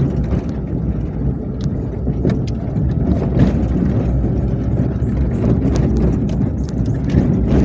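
A motor vehicle's engine running steadily, a low rumble with scattered short knocks and rattles over it.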